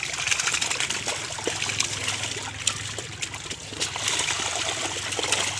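Water trickling and splashing, with many small irregular splashes over a steady hiss.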